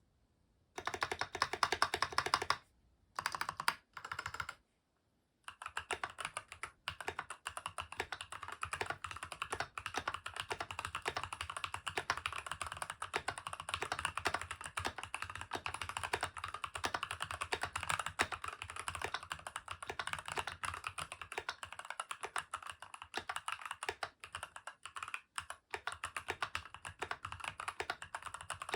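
Stock Keychron V2 mechanical keyboard with brown tactile switches being typed on fast, a steady stream of key clicks. It starts about a second in and breaks off briefly twice in the first few seconds before running on continuously.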